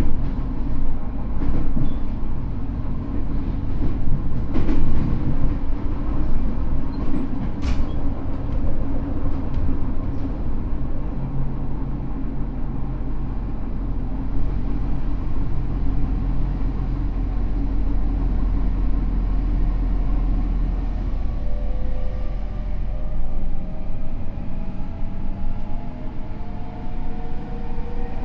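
Interior running sound of a Tokyo Metro N05 series subway car at speed: a steady low rumble and wheel-on-rail noise with a couple of short knocks. From about two-thirds of the way through, a faint whine of several tones rises slowly in pitch, the traction motor's sound as the train gathers speed.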